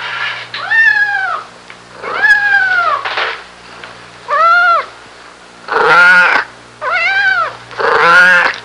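Mammoth call sound effects: a series of about seven short, high-pitched wailing calls, each rising and then falling in pitch, a few of them rough and grating.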